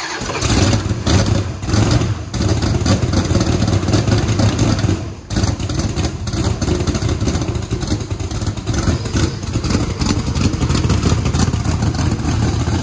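Methanol-fuelled twin-turbo 540-cubic-inch big-block V8 running loud through short, open titanium downpipes just after start-up. The revs surge a few times in the first couple of seconds, then settle into steady running.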